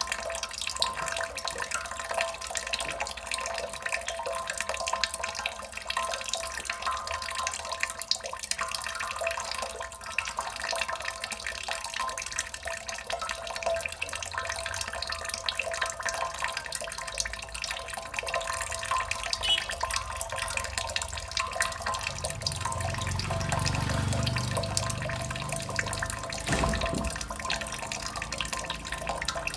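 Water dripping and splashing steadily, a dense run of small drops landing in water. A low rumble swells for a few seconds near the end.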